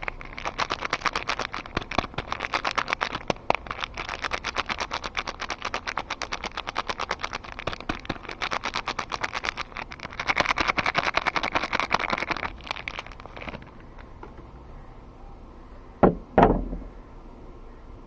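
Soap packaging being unwrapped: a wrapper crinkling and rustling in quick, dense handling for about thirteen seconds, then two knocks close together a little later.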